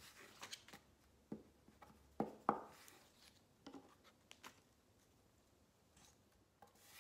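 Faint rustling and light taps of construction paper being handled and glued down with a glue stick on a tabletop. The sounds are scattered, mostly in the first half, with the sharpest taps about two and a half seconds in.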